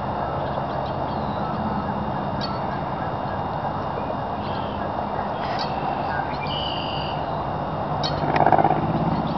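Marsh ambience: scattered short, high bird calls over a steady rushing background noise. About eight seconds in, a louder, lower-pitched sound swells briefly and fades.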